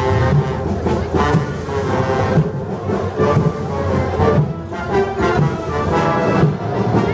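Music with a steady beat and sustained pitched tones.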